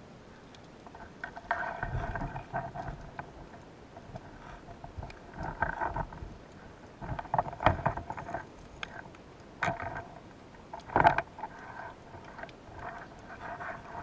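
Muffled underwater rubbing, scraping and knocking heard through the camera's waterproof housing, in irregular bursts with sharp clicks, as a diver's hands and gear work against rock in a crevice.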